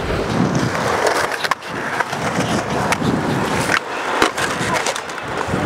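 Skateboard wheels rolling on a concrete skatepark, with several sharp clacks of boards hitting the ground.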